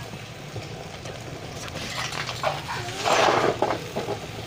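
Water spinach stir-frying in a wok, with a louder burst of sizzling about three seconds in over a steady low hum.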